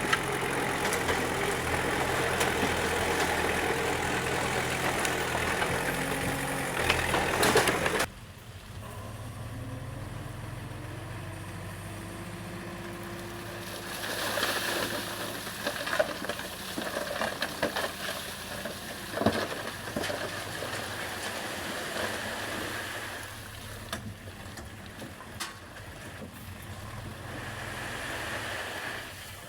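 Bulldozer diesel engine running under work. The sound is loud and dense for about eight seconds, then cuts abruptly to a quieter stretch of engine running with a few sharp knocks.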